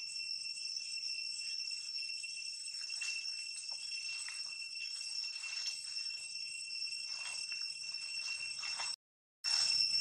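Steady high-pitched insect drone made of two even tones, with faint rustling beneath it. The sound cuts out for a moment about nine seconds in.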